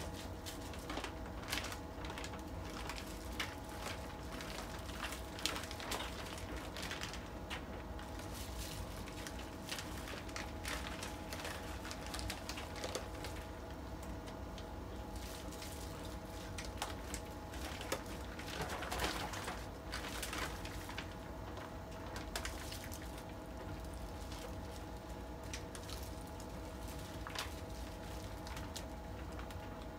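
Plastic bag crinkling and wet cabbage kimchi squishing as handfuls are lifted out of the bag and packed into a plastic container, in a run of small clicks and rustles with one louder rustle about two-thirds of the way through. A steady faint hum sits underneath.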